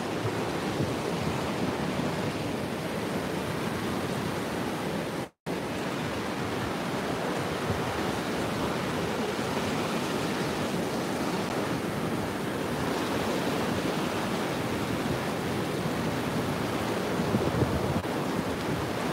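Sea surf breaking and washing up a sandy shore: a steady rush of water noise, cut off to silence for a moment about five seconds in.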